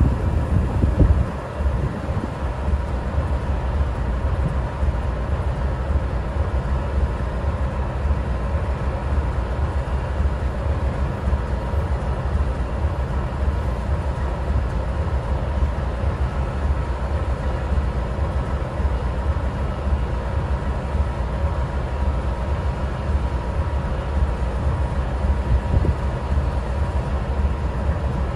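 GE Dash 9-44CW diesel-electric locomotive idling steadily: its 16-cylinder 7FDL engine gives an even, deep rumble, with a thin steady tone above it.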